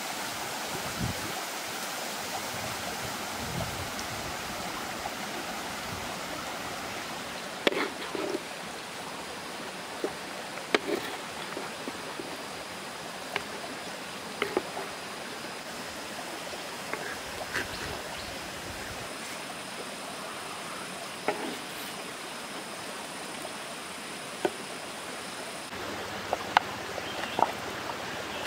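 A small stream running steadily, with scattered light clicks and knocks.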